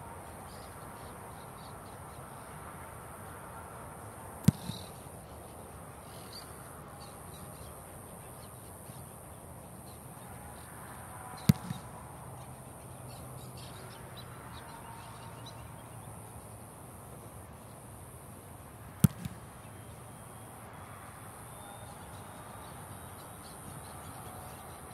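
Three punts of an American football, each a sharp thump of the foot striking the ball, followed a fraction of a second later by a fainter second knock. The kicks come about seven seconds apart, over a steady high buzz.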